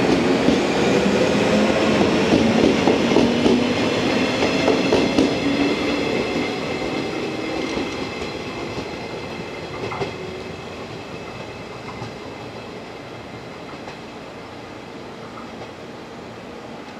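JR West 115-series electric multiple unit accelerating out of the station, its traction motors and gears whining and rising slightly in pitch, with wheels clacking over rail joints. It is loudest for the first few seconds, then fades steadily as the train draws away.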